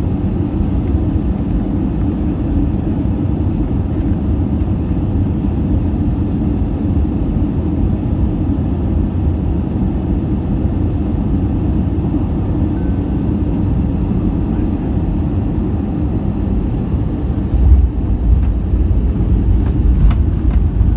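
Cabin noise of an Airbus A319 landing, heard from a window seat over the wing: a steady low rumble of engines and rushing air. Near the end a thump comes as the wheels touch down, and the rumble then grows louder as the aircraft rolls out on the runway, typical of reverse thrust.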